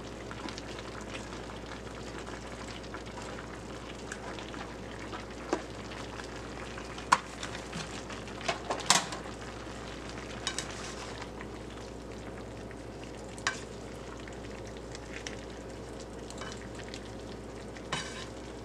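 A stir fry of vegetables, pasta and sausage sizzling steadily in a wok as it is stirred with a spatula. A handful of sharp clicks of the spatula against the pan stand out, loudest around the middle.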